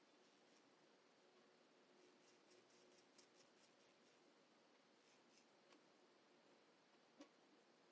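Near silence: faint room tone with a few very faint scratchy ticks and one soft click near the end.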